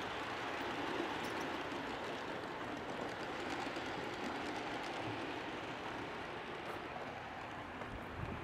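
G-scale model freight cars rolling along garden railway track: a steady rumble and clatter of small wheels on rail, easing off a little near the end.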